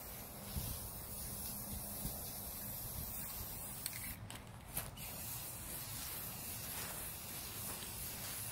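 Aerosol can of metallic gold spray paint hissing as it is sprayed, with a brief break about four seconds in.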